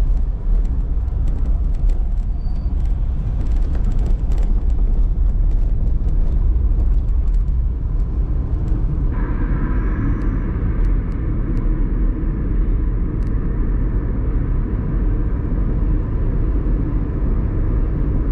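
Steady road and engine rumble inside a moving car. About halfway through, the noise turns a little brighter and hissier.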